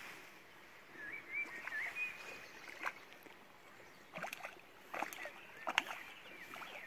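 A hooked grayling splashing at the surface several times, the sharpest splash near the end. A small bird sings short warbling phrases about a second in.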